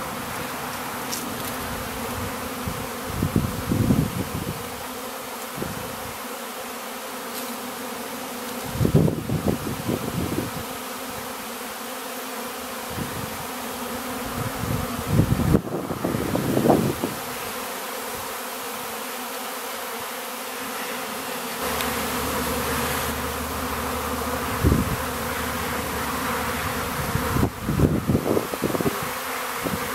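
A honeybee swarm in flight: a dense, steady hum of many bees, with a few brief louder swells now and then.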